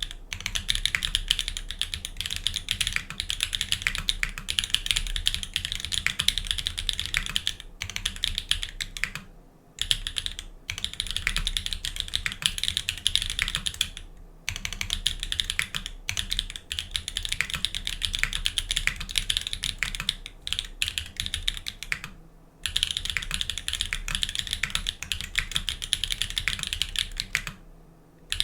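Fast, continuous typing on a GEONWORKS F1-8X mechanical keyboard with lubed Everglide Dark Jade linear switches and GMK ASCII keycaps, with a few short pauses.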